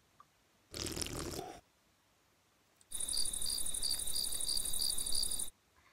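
Cricket chirping sound effect: a steady high trill with evenly spaced chirps, about three or four a second, starting abruptly about three seconds in and cutting off suddenly after about two and a half seconds. Before it, about a second in, comes a short burst of noise.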